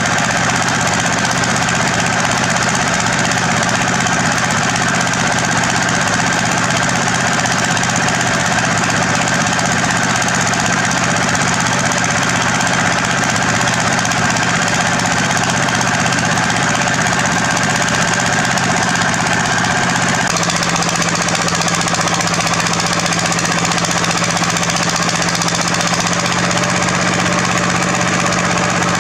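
Heavy construction machinery at work: a diesel engine running steadily under load with a rapid mechanical rattle, its tone shifting abruptly about two-thirds of the way through.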